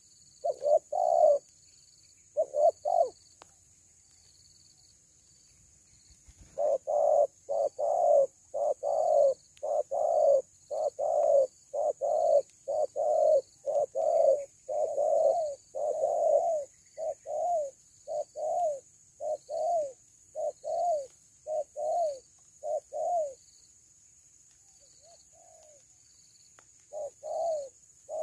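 Spotted doves cooing, a run of short, low coo notes at about two a second with pauses between runs. Behind it is a steady high-pitched drone.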